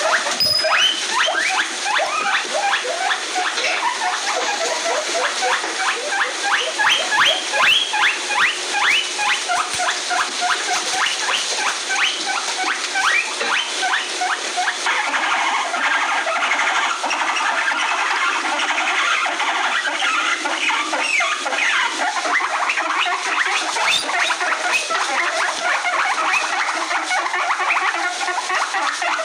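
Guinea pigs squeaking: a long run of short, high, rising squeaks, several a second, growing denser past the middle.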